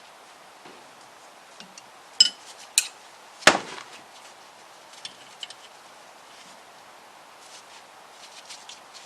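Metal hand tools clinking and knocking against a Classic Mini's cast-iron engine block while the cylinder head studs are undone. Two ringing clinks come about two seconds in, a louder knock follows a second later, and light ticks are scattered after it.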